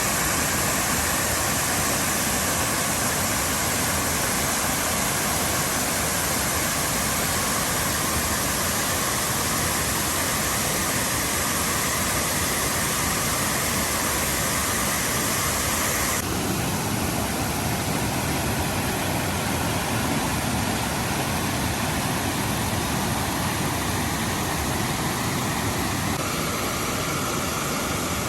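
Nunobiki Falls waterfall: a steady, loud rush of falling water with no break. About halfway through, the sound changes suddenly to less hiss and more low rumble.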